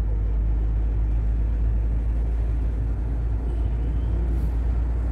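Diesel moving truck driving at a steady speed: even engine drone and low road rumble with no gear changes or revving.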